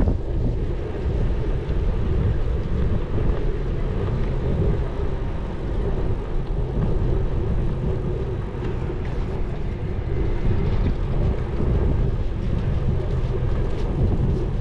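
Steady low rumble of wind buffeting the microphone of a camera riding along on a bike.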